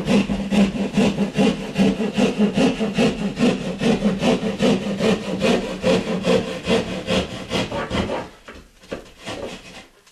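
Hand sheetrock saw cutting through a drywall ceiling in quick, even back-and-forth strokes, about four or five a second. The steady sawing stops about eight seconds in, followed by a few softer, scattered strokes.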